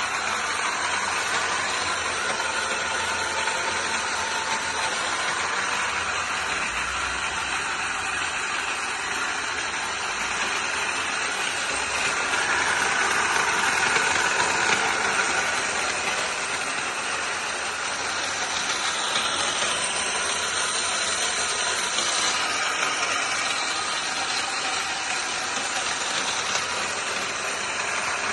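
Batliboi radial drilling machine running with a steady mechanical hum and hiss that grows slightly louder near the middle.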